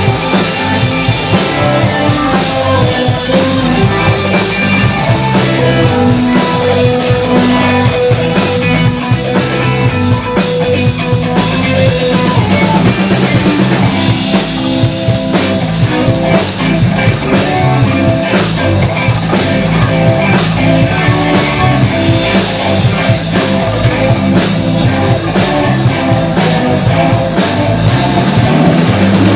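Live band playing an instrumental passage: two electric guitars, electric bass and a drum kit, without singing.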